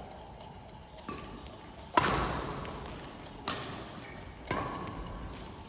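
Ball being struck back and forth in a rally: four sharp pops about a second apart, the second the loudest, each with a brief ringing tone.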